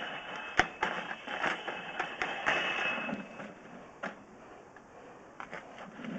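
Metal clicking, knocking and scraping of a sewer cable and camera push cable being worked by hand inside broken cast iron pipe, trying to flex a stuck camera's spring free. The rattling is busiest for the first few seconds, then thins to scattered clicks, with a faint high whine through the first half.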